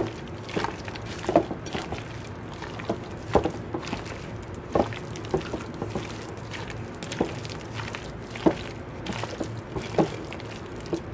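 Bare hands mixing a thick, creamy potato salad in a large bowl: soft wet squishing and squelching, with short sharp taps every second or two.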